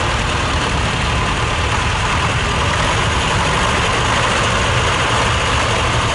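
Small vintage tractor engine running steadily at constant revs while plowing.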